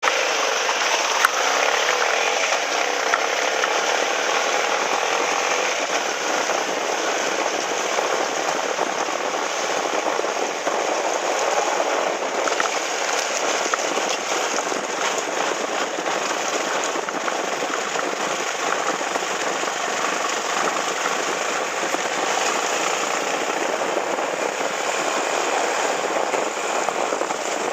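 Motorcycle engine running steadily under way, mixed with a steady rush of wind and road noise.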